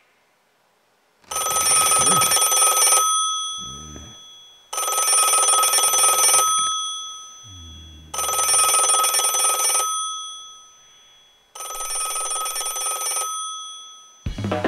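Bell telephone ringing four times, each ring about a second and a half of jangling bell tones with a gap of about two seconds between rings. Music comes in just before the end.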